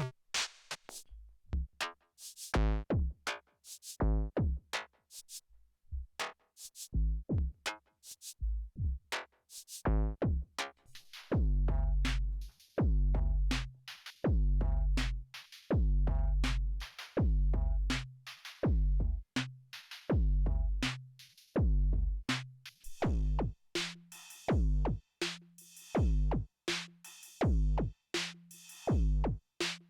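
Erica Synths Perkons HD-01 drum machine playing a simple repeating pattern of classic drum-machine sounds: kicks, snares and hi-hats. The sound changes about a third of the way in to deep, long booming kicks, and again about two-thirds in, where a held bass note and hissing hats join, as the next kit sounds are called up.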